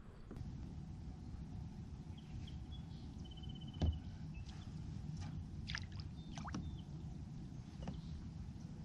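Steady low rumble of wind and water around a kayak, with a single sharp knock about four seconds in and a few faint, short high chirps and ticks scattered through the middle.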